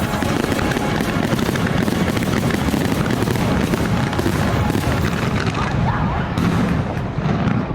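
Fireworks going off in a dense barrage, bursts booming one over another with show music beneath, easing off near the end.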